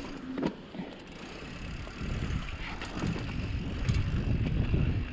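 Mountain bike rolling down a dusty, loose, rocky trail: tyres running over dirt and rock with scattered clicks and knocks from the bike, and wind on the microphone. The rumble gets louder about two seconds in as the bike picks up speed.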